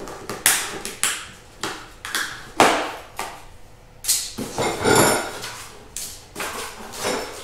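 New bolts and hardware being handled in a parts box: a series of knocks and rustles with metal parts clinking together, and a brief bright metallic ring about five seconds in.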